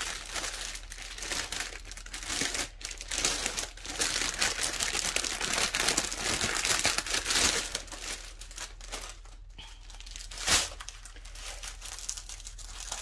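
Plastic packaging crinkling and crackling as a bundle of small bags of diamond-painting drills is handled and unwrapped, with one sharper snap about ten and a half seconds in.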